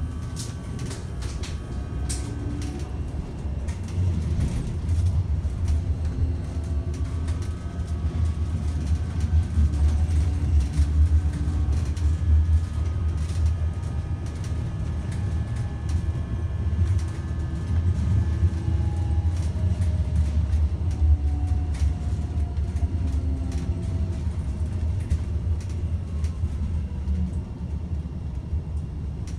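Ride noise inside a Class 399 Citylink tram-train in motion: a steady low rumble of wheels on rail, with the electric drive's whine sliding slowly up and down in pitch and scattered sharp clicks from the track.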